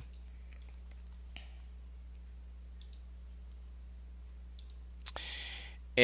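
Faint computer mouse clicks over a steady low hum. Near the end there is a sharper click followed by a short breath.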